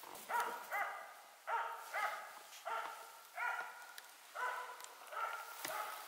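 Tree-barking bird dog baying at a game bird it has treed, a steady run of sharp high-pitched barks, about one and a half a second and often in pairs. The barking holds the bird in the tree and marks its place for the hunters.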